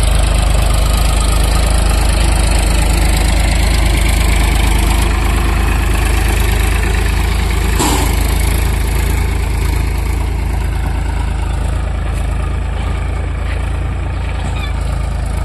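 Powertrac Euro 50 tractor's three-cylinder diesel engine running steadily while pulling a seed drill through tilled soil, growing a little fainter toward the end as it moves away. A single sharp click about eight seconds in.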